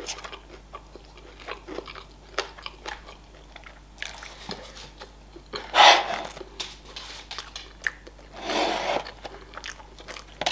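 Close-up eating sounds of KFC fries and crispy fried chicken wings: small wet chewing clicks throughout, with two louder crackling crunches about six seconds and nine seconds in.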